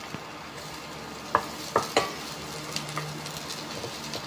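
Minced garlic sizzling in hot oil in a stainless steel pot, with a wooden spatula stirring it and knocking against the pot several times from about a second and a half in.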